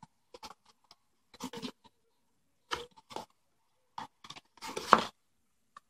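Cardboard box and its packaging being handled by hand: irregular rustling and crinkling in short bursts, loudest about five seconds in.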